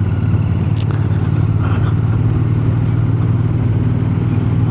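Royal Enfield Bear 650's 648 cc parallel-twin engine running at steady, low revs while the motorcycle is ridden, with a brief click just under a second in.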